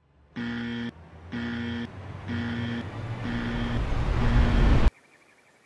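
Electronic warning beeps, five short tones about a second apart, growing fainter while a rising swell of noise builds underneath and cuts off suddenly about five seconds in.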